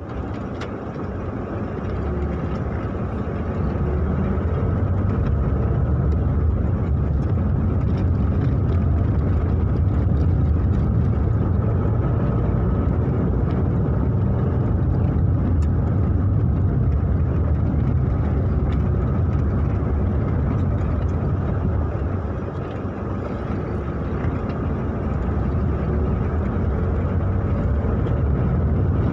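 A vehicle driving along a rough dirt road, heard from inside the cabin: a steady low engine and tyre rumble. It eases off briefly about two-thirds of the way through, then builds again.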